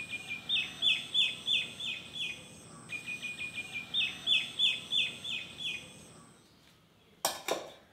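A songbird singing two identical phrases, the second starting about three seconds in. Each phrase opens with a few short notes, then runs into about six clear, downslurred whistled notes at roughly three a second.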